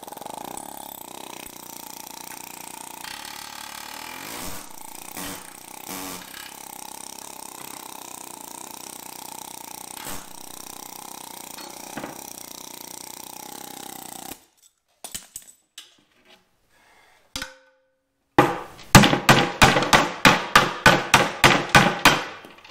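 A hammer striking a steel front-suspension control arm in a fast, even run of ringing blows, about four a second, to drive out the old rubber bushings. Before the blows there is a steady background hum with scattered small clicks, then a short near-silent pause.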